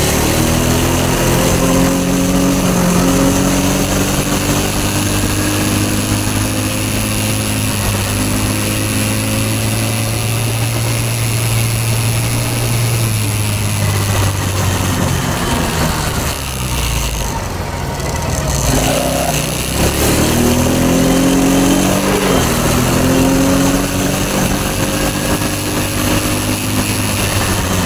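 ATV (quad bike) engine running while being ridden, heard from on board. Its pitch climbs repeatedly as the throttle opens, then drops back partway through before climbing again.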